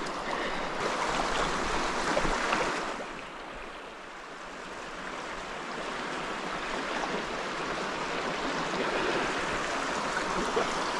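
Shallow creek water running and splashing around boots as someone wades into it, louder for the first three seconds, then a steady flow.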